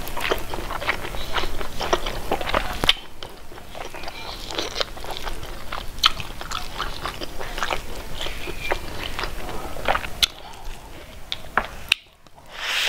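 Close-miked mukbang eating sounds: mouth chewing with irregular wet clicks and smacks, mixed with fingers squishing rice into gravy. The sound briefly drops away near the end.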